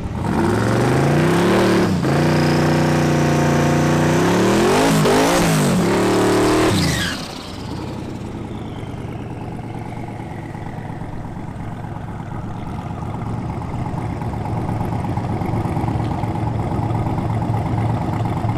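A twin-turbo 408 ci LS V8 in a Camaro revs hard for about seven seconds in a burnout, its pitch rising and falling several times. It then settles to a steady, lumpy idle.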